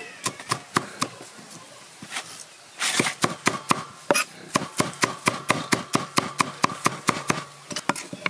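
Steel cleaver chopping on a wooden chopping block, mincing fish and vegetables into a paste. A few strokes, a short pause, then a fast even run of chops, about five a second.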